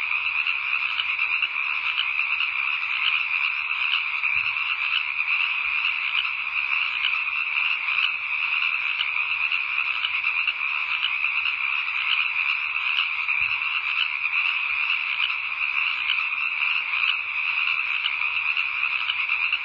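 Dense, steady chorus of many frogs calling together, an unbroken night-time frog chorus.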